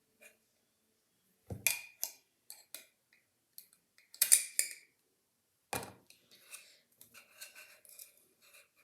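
Metal scissors clicking and scraping against a small pot while prying at a strong magnet stuck inside it. There are several sharp clacks, the loudest about four seconds in, with lighter scraping after it.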